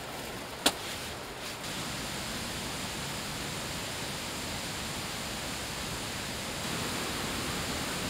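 A steady, even rushing noise, with one sharp click a little under a second in.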